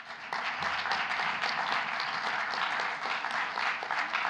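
Audience applauding: many hands clapping in a dense, steady patter that starts abruptly.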